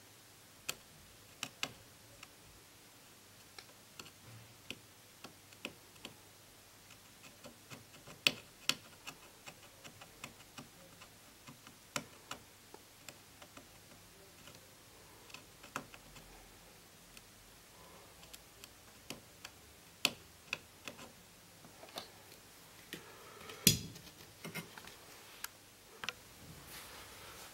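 Irregular light clicks and taps from a fine hand tool touching and scraping the circuit board and COF flex traces as damaged tracks are repaired; a few clicks are sharper and louder than the rest.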